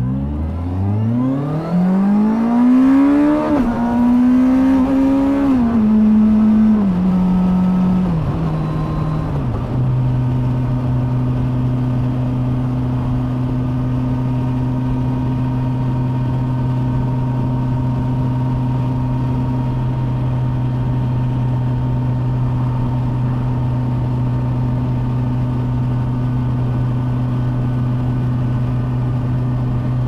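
Kawasaki Versys 1000 SE's 1,043 cc liquid-cooled inline-four accelerating at full throttle, heard from the rider's seat. The engine note climbs steeply over the first few seconds, then drops in several steps as the rider shifts up. From about a third of the way in it holds a steady drone under wind rush at motorway speed.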